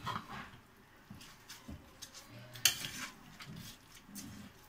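A metal spoon stirring rice in a metal pressure cooker pot: soft scraping with scattered clinks of the spoon against the pot, and one sharper clink a little after two and a half seconds in.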